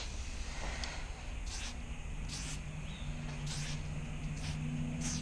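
Aerosol spray-paint can hissing in about four short bursts, roughly a second apart, as colour is filled in on a wall. A low steady hum runs underneath.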